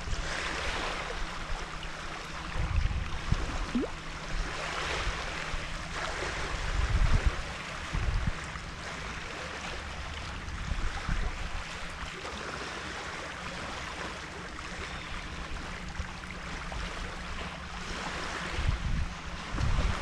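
Small waves lapping at a stony, reedy shoreline, in a hiss that swells and ebbs every few seconds, with wind gusting on the microphone in low rumbles now and then.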